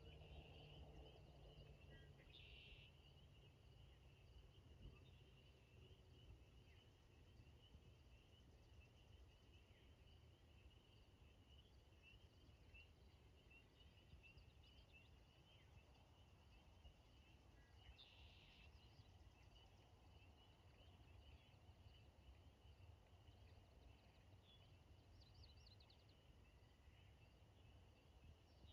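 Faint, steady evening chorus of frogs calling, a continuous high trilling with no break. Short bird calls come in twice, a few seconds in and again past the middle, over a low background rumble.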